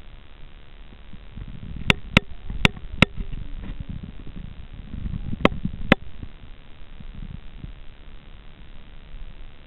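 Low rumbling underwater noise picked up by a submerged camera, broken by sharp clicks: four within about a second, a couple of seconds in, then two more about half a second apart in the middle.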